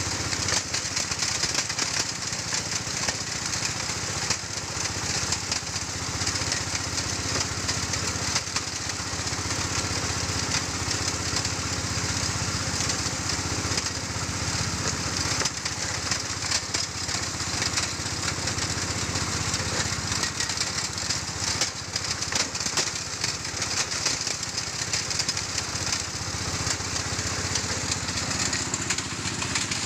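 Engine-driven stone grinding mill for gold ore running steadily: a constant engine drone under a dense, fast rattle.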